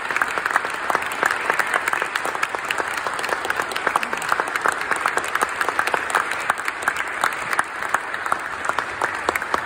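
Audience applauding steadily, a dense patter of many hand claps, with sharper individual claps from a listener close by.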